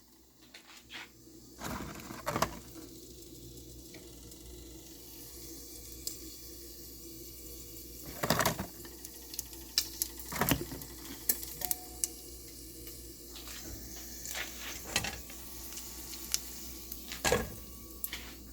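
Meat sizzling as it browns in a pot, a steady hiss, with a few sharp knocks and clatters of a utensil against the pot.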